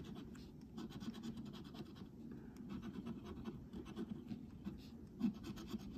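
A coin scraping the coating off a scratch-off lottery ticket in quick, repeated strokes.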